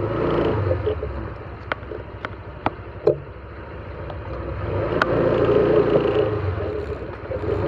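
Motor vehicle engine running at low speed, a steady low hum that grows louder about four to six seconds in, with a few light clicks along the way.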